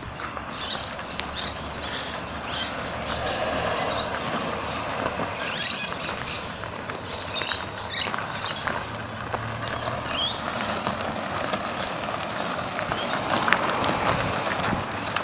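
Short high chirps and squeaks, many of them quick falling calls, scattered over a steady outdoor hiss as a mobility scooter drives over asphalt and gravel. The loudest cluster of chirps comes about six seconds in.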